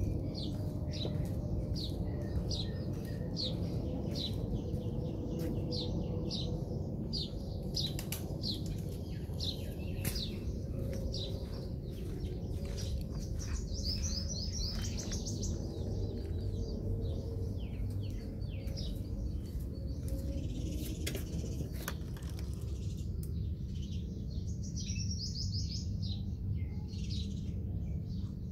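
Small birds chirping: a run of short, high, falling chirps repeated several times a second, with a quick trill a couple of times, over a steady low rumble.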